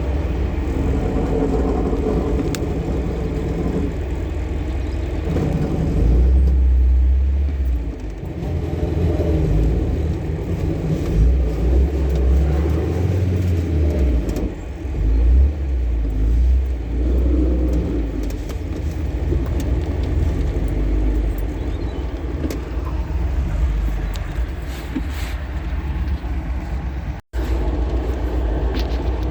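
Car being driven: engine and road rumble, steady with some swells in level.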